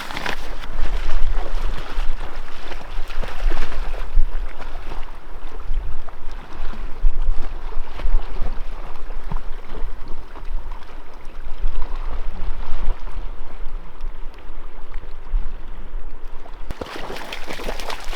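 River water rushing and churning, with a heavy low rumble on the microphone. The sound changes abruptly near the end.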